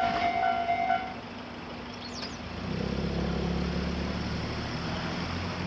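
Japanese level-crossing electronic warning bell ringing in a steady repeating clang, stopping about a second in once the train has cleared. A road vehicle's engine then starts to run, a low rumble that comes up about halfway through.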